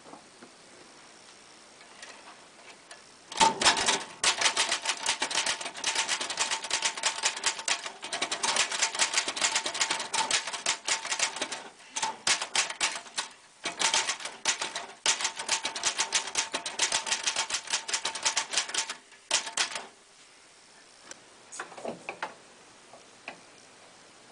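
Royal KHM manual typewriter being typed on: a quick, steady run of keystrokes starting about three seconds in and lasting some sixteen seconds, with two short breaks midway. A few faint clicks follow near the end.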